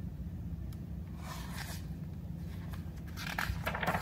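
A page of a picture book being turned by hand: a soft paper rustle about a second in, then a louder rustle and slide near the end as the page flips over. A steady low hum runs underneath.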